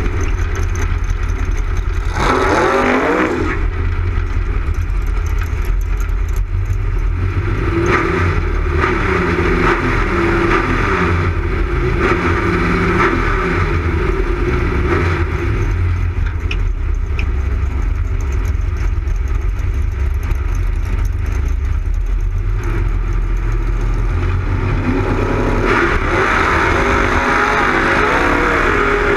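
Drag racing car engine running loud, revved sharply about two seconds in and blipped repeatedly in the staging lanes, then held at full throttle near the end as the car launches off the line.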